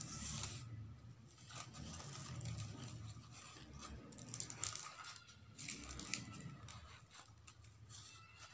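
Faint rustling and crinkling of shiny decorative ribbon being handled and wrapped around the handle of a wicker basket, with small scratchy ticks.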